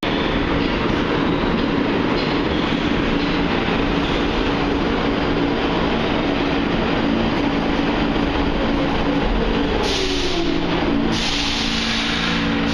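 New York City subway train running, with a steady rumble and rattle of the car on the track and a low motor hum. The motor tone slides down in pitch about nine seconds in, followed by bursts of hissing near the end.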